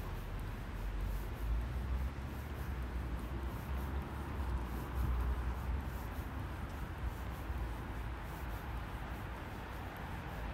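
Outdoor city street ambience: a steady wash of distant traffic noise with a low, uneven rumble that swells and fades.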